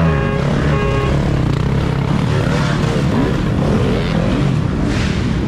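Several dirt bike engines revving hard and unevenly, their pitch rising and falling again and again as the bikes struggle over rocks. A brief steady tone sounds in the first second.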